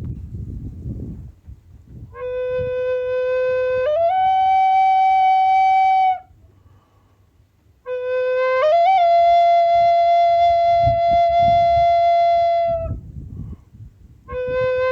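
A flute-like wind instrument playing two long held notes, each stepping up to a higher pitch partway through, with a low rumble underneath.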